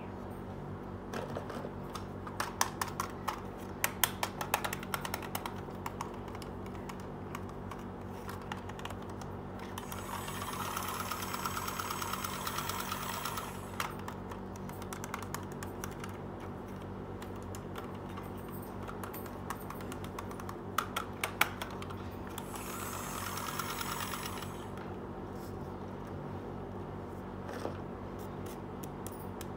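Small plastic toys clicking and clattering as they are handled and set down, in two bursts of quick clicks. Between and after them come two steady whirring stretches of a few seconds each.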